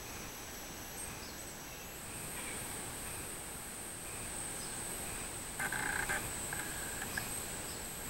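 Cicadas singing in the trees: a steady, thin high-pitched drone that steps slightly higher about two seconds in. About six seconds in, a short cluster of louder, harsher calls cuts across it, with a couple of fainter ones after.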